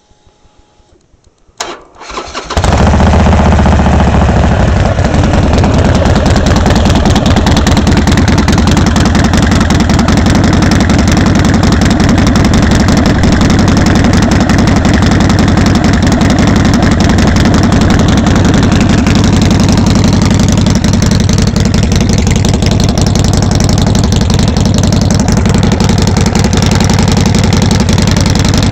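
2007 Harley-Davidson Sportster 1200 Custom's air-cooled V-twin is cranked on the starter and fires about two and a half seconds in, then idles loudly through Samson Big Guns 3 baloney-cut pipes. It runs a little harder for the first couple of seconds after catching, then settles into a steady idle.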